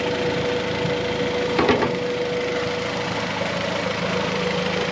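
Turbocharged G23 VTEC four-cylinder engine idling steadily at normal operating temperature, with a thin steady whine over the idle that fades about halfway through. The idle holds without stalling, the idle air control valve compensating.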